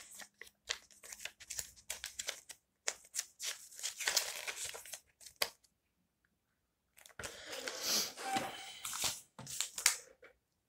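Small folded paper leaflet rustling and crinkling as it is unfolded and handled, in irregular bursts with a pause of about a second and a half a little past the middle.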